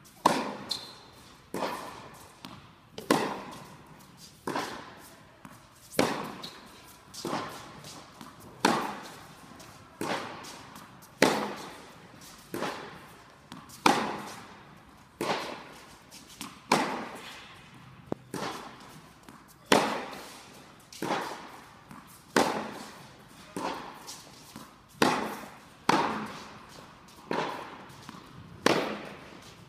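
Tennis racket striking the ball in a steady groundstroke rally, a loud hit about every one and a half seconds with softer knocks between, each echoing in a large indoor tennis hall.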